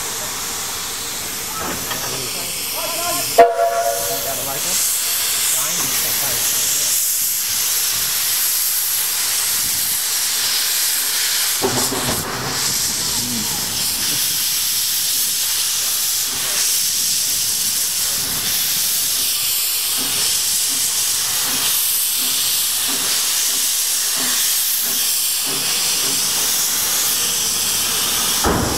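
Abt rack tank steam locomotive hissing steadily as steam escapes from its open cylinder drain cocks. There is a single sharp crack about three and a half seconds in.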